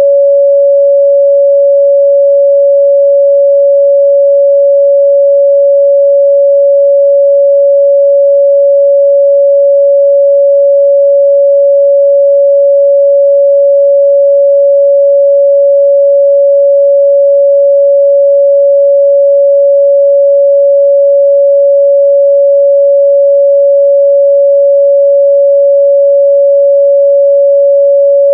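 A pure 562 Hz sine-wave test tone, held steady and loud at one pitch with no change.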